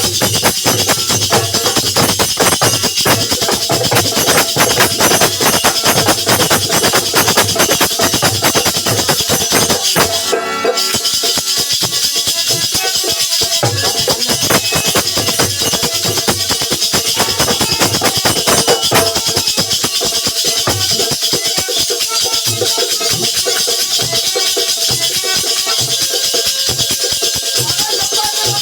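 Instrumental Bundeli folk percussion: dholak and nagadiya drums played fast under a steady shimmer of jingling metal percussion such as manjira and jhinka.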